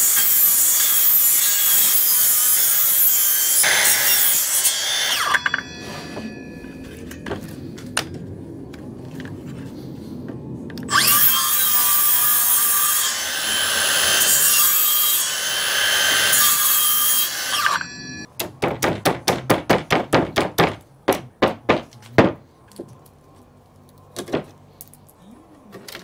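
Makita 18V cordless circular saw cutting into a wooden frame in two runs of several seconds each, with a quieter pause between. Then a quick series of about twenty sharp knocks, followed by a few scattered ones.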